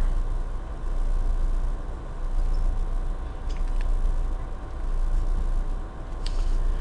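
Red felt-tip marker scribbling back and forth in zigzag shading strokes on a worksheet in a plastic sleeve, over a steady low hum.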